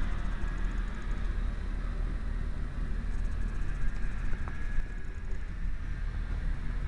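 Caterpillar 953 track loader's diesel engine idling, a steady low rumble.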